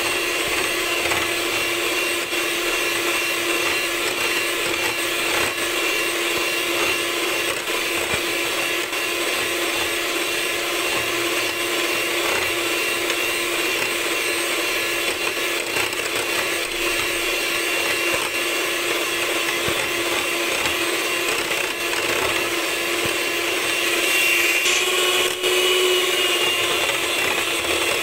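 Electric mixer running steadily, its spinning whisk beating heavy cream as it thickens into whipped cream. The motor gives an even whine that swells slightly near the end.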